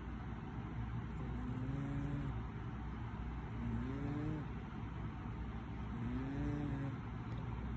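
A sleeping cat snoring: three drawn-out, pitched snores, about one every two and a half seconds, each rising slightly and falling away. A steady low hum runs underneath.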